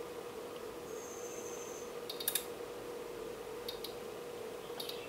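Front-panel push buttons on a Rigol DG1022U function generator and an oscilloscope being pressed, giving a few sharp clicks: a quick pair about two seconds in, then single presses. A high electronic beep lasts about a second near the start, over a steady hum.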